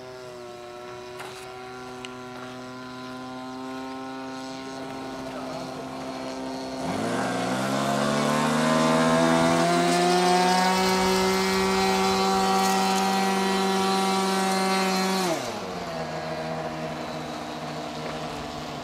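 Petrol engine of a giant RC Piper Cub model plane flying overhead, its propeller buzzing at a steady pitch. About seven seconds in the pitch rises and it gets much louder, holds there for about eight seconds, then the pitch and loudness drop sharply.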